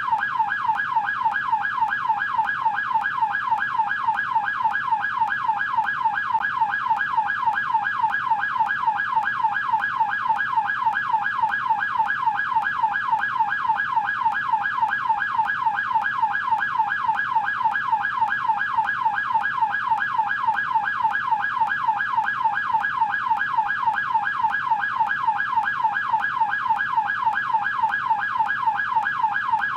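American police car siren on its yelp tone: a fast up-and-down wail repeating several times a second, steady and unbroken.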